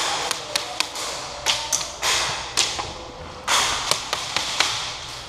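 Airsoft gunfire in an indoor close-quarters arena: irregular sharp snaps and knocks of guns firing and BBs striking plywood barricades, a few a second at times, echoing off the hall.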